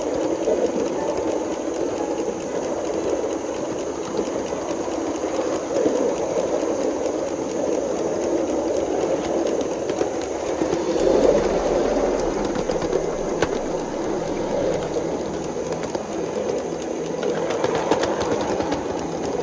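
Small coal-fired 3.5-inch gauge LBSC Juliet live steam locomotive running steadily along the track, its working and wheels on the rails making a continuous mechanical chatter. It grows briefly louder with a low rumble about eleven seconds in.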